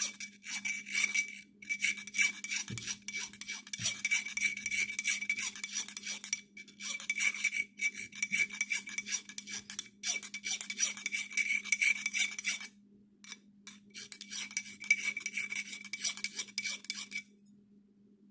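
Hand file rasping on the steel edge of an axe head in quick strokes, with a few short pauses, stopping shortly before the end.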